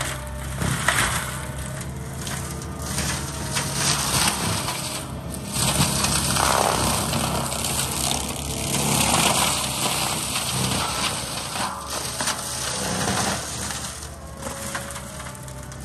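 Gyro-Trac 500HF forestry mulcher head on a Cat compact track loader grinding brush into mulch. The loader's engine runs steadily under the noise of the spinning rotor, with frequent sharp cracks and knocks as wood is chewed up.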